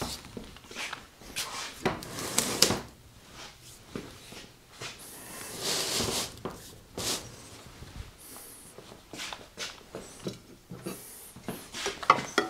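Heavy cast-iron parts being handled and fitted on a workbench: irregular knocks and clicks with a couple of longer scrapes.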